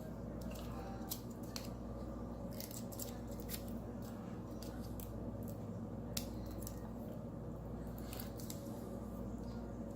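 Scattered small clicks and light taps from handling the smartwatch's tiny back parts, over a steady low hum.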